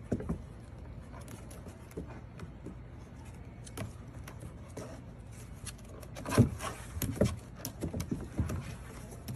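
Puppy paws and claws tapping and scrabbling on a plastic toddler slide as a puppy climbs its steps: scattered light clicks and knocks, with a few louder thumps about six to seven seconds in.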